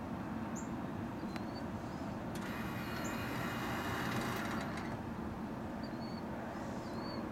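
Steady low outdoor rumble with small birds chirping briefly several times. About two and a half seconds in, a louder hiss rises and fades after about two seconds.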